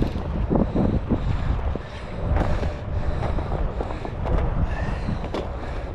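Wind buffeting the microphone over a steady rush of river water, with scattered short knocks and splashes.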